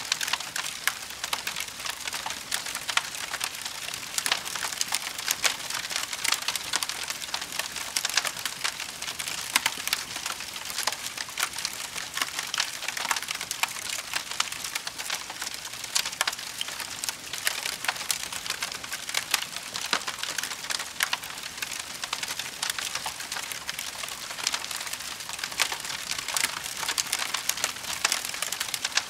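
Campfire wood burning with dense, irregular crackling and sharp pops.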